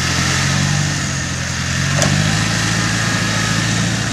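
Land Rover engine running at low revs under a light load, its pitch wavering slightly, with a faint higher whine over it. A single sharp click sounds about two seconds in.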